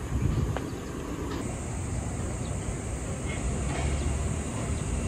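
Steady outdoor city ambience: a low rumble of distant traffic under a broad hiss.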